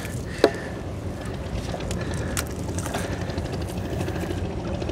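Steady low rumble of a small boat's engine running, with one sharp click about half a second in.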